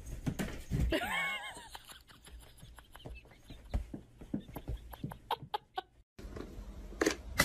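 A short animal call about a second in, its pitch rising then falling, followed by a run of light irregular taps and clicks that cut off suddenly about six seconds in.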